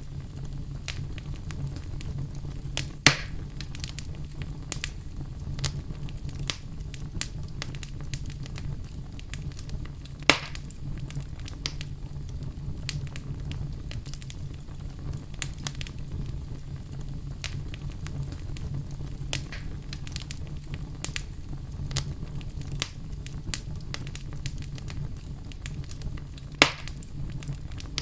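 Wood fire crackling steadily over a low hiss, with frequent small snaps and three louder pops, about 3, 10 and 26 seconds in.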